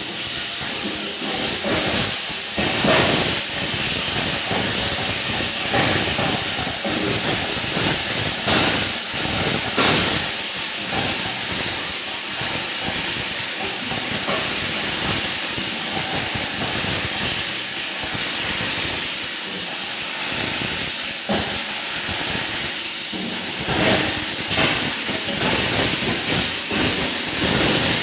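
Heavy-duty 20-inch plastic scrap grinder running, a loud steady rushing noise broken by irregular sharp cracks.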